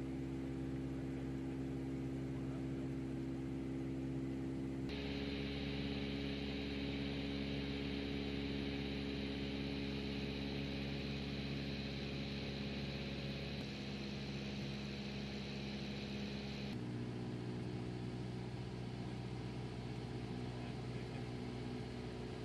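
Steady engine drone of an aircraft flying over a lava field, heard from aboard: a hum of several steady tones over a rushing noise. Its pitch and tone change suddenly about 5, 14 and 17 seconds in.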